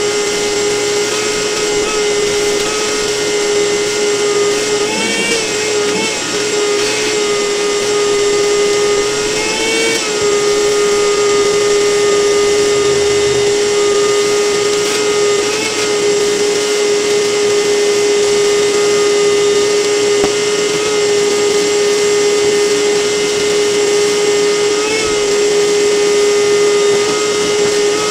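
A small electric motor of a power tool or cleaning machine running steadily at high speed, its pitch dipping briefly a few times.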